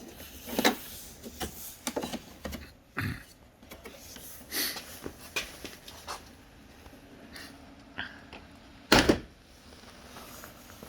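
Plastic interior door panel of a Chrysler Pacifica being pried off with a nylon trim tool: scattered clicks, creaks and knocks of plastic, with one louder snap about nine seconds in.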